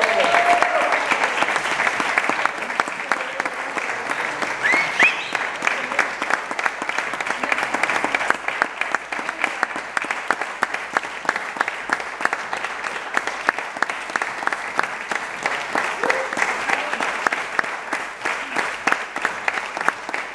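Audience applauding, loudest in the first seconds and then steady, with a few brief voices calling out from the crowd.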